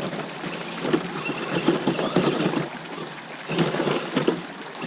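Water splashing and rushing in irregular surges.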